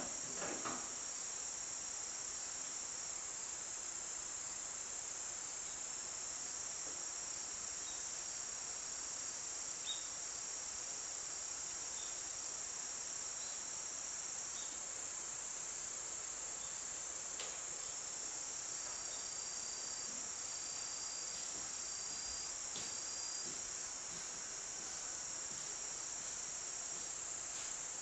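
A steady, high-pitched insect chorus, with a faint knock about half a second in and another about ten seconds in.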